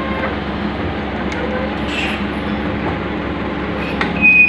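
Kobelco mini excavator's diesel engine running steadily as the machine travels on its crawler tracks, with the tracks clanking and squeaking; a short sharp squeal about four seconds in.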